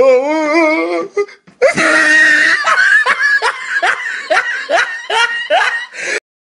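Person laughing loudly: a wavering drawn-out laugh, then a long run of quick rhythmic 'ha-ha' bursts, each rising in pitch, about three a second, stopping abruptly just before the end.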